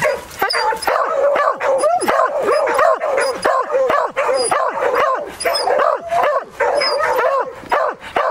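Beagle and Beagle-Harrier hounds baying without pause, their barks overlapping several times a second. This is bay barking at a wild boar held at a stand in the brush.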